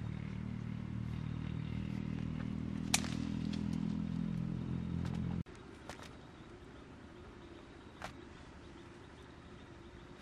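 A small engine running steadily, which cuts off suddenly about halfway through. After it come a few faint clicks and knocks.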